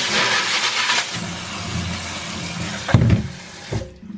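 Kitchen tap water pouring onto piñon nuts in a plastic colander in a stainless steel sink, with a thump about three seconds in. The water shuts off near the end.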